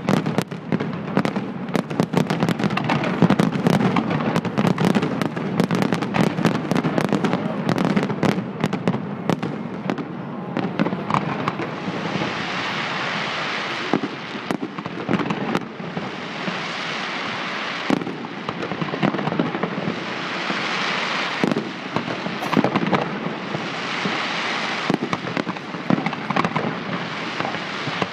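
Fireworks display: a rapid barrage of sharp bangs and reports for about the first half. After that come waves of dense crackling noise that swell and fade every few seconds, with scattered bangs.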